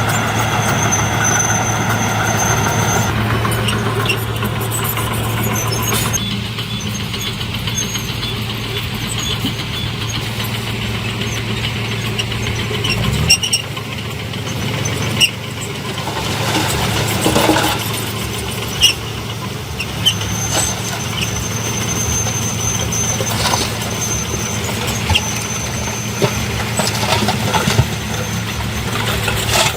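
Heavy diesel construction machinery running steadily, with a high-pitched squeal that comes and goes and a few sharp metallic knocks in the middle.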